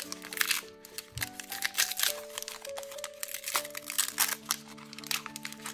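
Background music of slow, held chords over the irregular crinkling of toy packaging being torn and unwrapped by hand.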